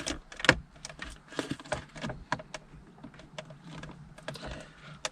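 Irregular light clicks and taps of hard plastic car interior trim being handled and worked loose, with one sharper click about half a second in.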